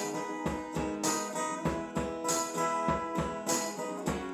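Live acoustic guitar strumming in a steady rhythm, with sustained chords and a regular low beat underneath, in an instrumental passage between sung lines.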